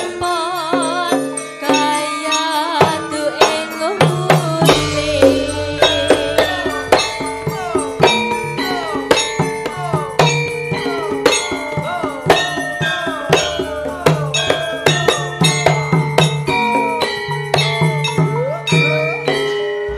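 Live Javanese gamelan playing a langgam: struck bronze kettle gongs (bonang) and metallophones ringing over kendang drums, with a female sinden singing a wavering line over it in the first couple of seconds. A deep low drum layer joins about five seconds in.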